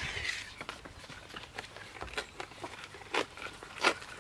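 New Zealand flax (harakeke) leaves being split lengthwise by hand and handled: a tearing rustle at the start, then scattered crackles and snaps of the stiff leaf fibres, the loudest two near the end.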